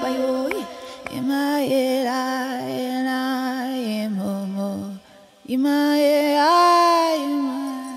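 Music: chant-like singing in long held notes that slide between pitches, breaking off briefly about five seconds in before one more held phrase that fades near the end.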